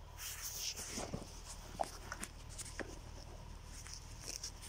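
Handling noise: scattered rustling and a few small clicks as the black plastic water feed tube and plastic parts are handled, over a faint steady low hum.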